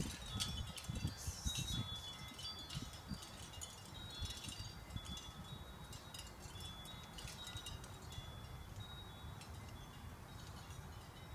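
Wind chimes tinkling, with short high ringing notes at irregular intervals over a low rumble.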